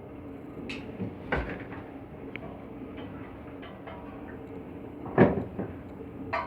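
A few sharp metal knocks and clanks, the loudest about five seconds in, from hand work on an air handling unit's blower during a V-belt change, over a steady machinery hum.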